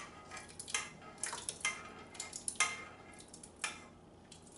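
Metal spoon scraping and knocking against the inside of a metal saucepan, a handful of irregular clinks and scrapes, as thick pepper sauce is scraped out of the pan.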